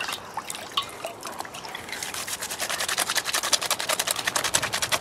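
Wet swishing and squelching of hands rubbing mock orange flowers and leaves together in water in a stainless steel bowl, working the saponin-rich plant matter into a soapy lather. From about two seconds in the rubbing settles into a quick, steady rhythm of strokes.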